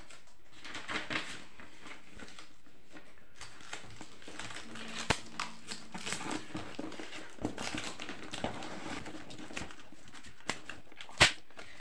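Paper and cardboard handling: a printed address sheet is laid on a cardboard box, smoothed down and fixed with packing tape, with crinkling and scattered sharp clicks, a loud one about five seconds in and the loudest near the end.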